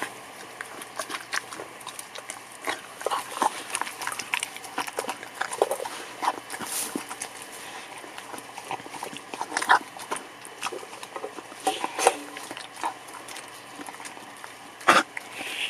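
A dog eating chunks of raw pork tenderloin from a stainless-steel bowl: irregular wet chewing, smacking and snuffling, with sharp clicks of teeth and tongue against the metal. The loudest click comes near the end, as it licks the emptied bowl.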